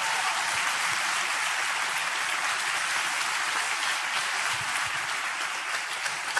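Audience applauding: many people clapping together at an even, steady level, easing off slightly toward the end.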